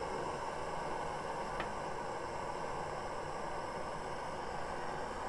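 Handheld butane torch burning with a steady hiss as its flame plays on a small lump of dried mineral residue, with one faint tick about one and a half seconds in.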